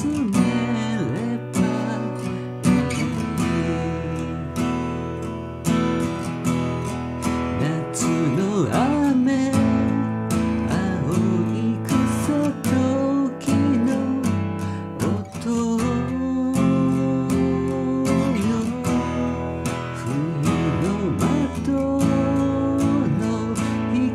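Acoustic guitar strummed and picked as song accompaniment, with a singing voice carrying a wavering melody over it in places.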